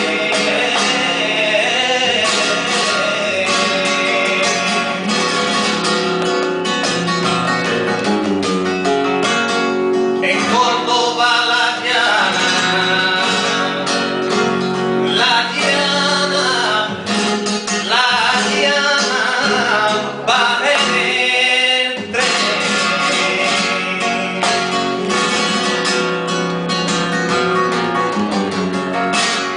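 Male flamenco singing (cante) in long, wavering sung lines, accompanied by a flamenco guitar playing strummed and plucked chords.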